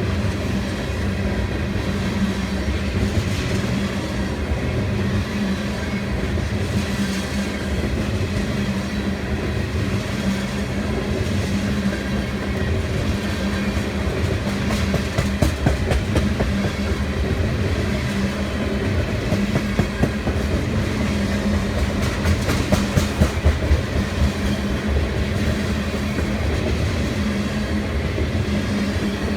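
Loaded tank cars of a freight train rolling past with a steady rumble and hum, wheels clicking over the rail joints; the clicking comes in louder clusters about halfway through and again about two-thirds of the way through.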